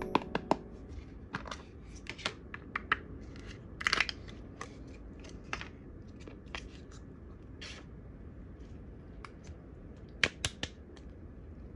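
Hands handling a small clear plastic tub of slime, taking off its lid and pulling the slime out: scattered small clicks and crackles, with a few sharper clicks about four seconds in and again near the end.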